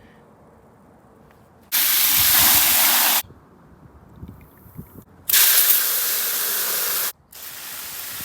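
Three bursts of spraying hiss, each about a second and a half to two seconds long, the last one quieter.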